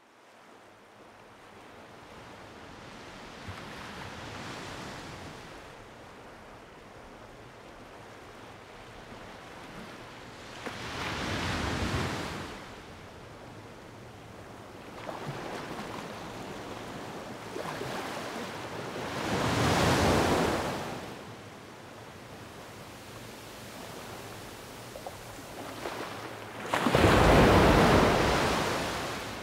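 Slow swells of rushing, surf-like noise that rise and fall every several seconds, the strongest about every eight seconds and the loudest near the end.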